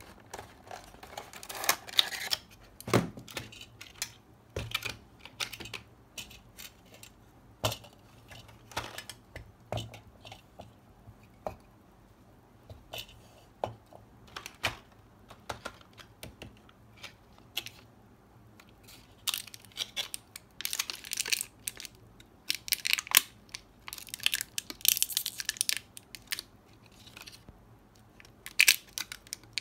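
Hands handling the parts of a 1:24 Maisto Ferrari Enzo die-cast model kit: scattered clicks and taps of hard plastic and metal pieces set down on the mat, with denser crinkling of clear plastic packaging, such as the wheel blister tray, in the latter part.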